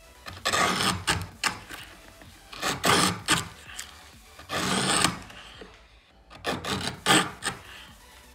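A hand tool scraping on wood in a series of short, irregular rasping strokes, coming in bunches with brief pauses between.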